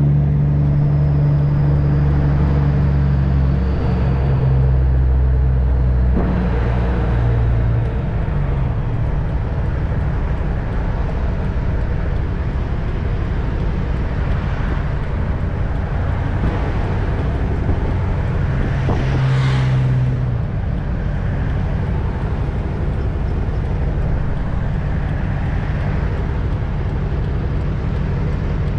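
Semi truck's diesel engine running under way with road and tyre noise. The steady low engine tone changes about eight seconds in, and a brief louder rush of noise comes about twenty seconds in.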